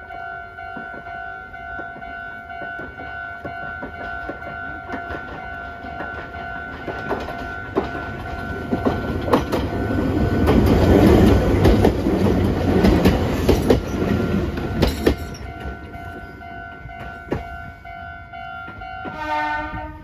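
Level-crossing alarm ringing steadily as a Meitetsu electric train approaches and passes. Its wheels clack over the rail joints, loudest about halfway through, then fade as it runs off. Near the end a short pitched tone sounds, stepping down in pitch.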